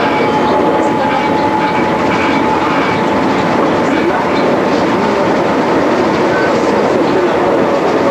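RER MI79 electric multiple unit running at speed, heard from inside the driver's cab: steady rolling noise of wheels on the rails with scattered clicks, and a thin steady whine that fades out after the first second or so.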